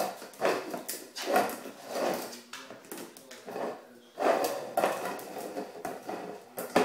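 A puppy playing with a plastic bowl on a tile floor: repeated scraping and knocking of the bowl, mixed with the puppy's small noises, in irregular bursts. A sharp knock comes near the end.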